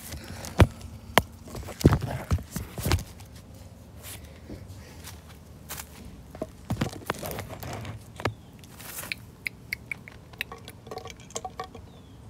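Scattered sharp clicks and crunches of a plastic toy horse being moved by hand over loose gravel, loudest in the first three seconds, then lighter ticks.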